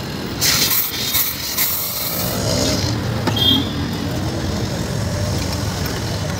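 A sharp hiss of gas lasting about two seconds as a soda bottle is charged with carbonated water at a CO2 cylinder filling rig. Fizzy soda is then poured from the bottle into glasses, over a steady rumble of street traffic.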